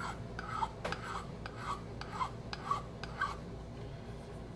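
Hand file scraping across the briar bowl of a tobacco pipe in short arcing strokes, about two a second, blending a ridge into the bowl's shape; the strokes stop about three seconds in.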